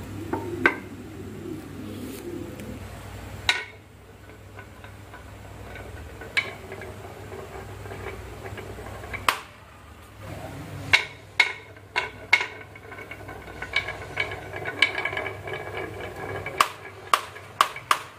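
Wooden planks and blocks being set down and knocked against each other while a marble-run track is assembled: sharp wooden knocks, a few seconds apart at first, then coming in quick clusters in the second half.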